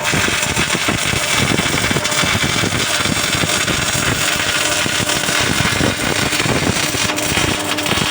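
MIG welding arc crackling steadily, a dense sizzle of fine irregular pops as the wire feeds into the weld pool.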